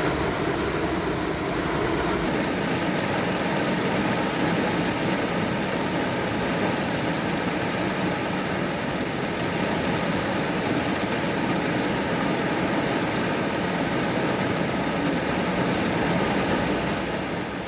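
Steady rain falling, an even hiss with a low rumble under it for the first two seconds, fading out near the end.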